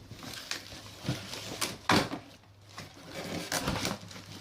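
Packaging and parts being handled during an unboxing: scattered rustling and small knocks, with one sharp knock about two seconds in.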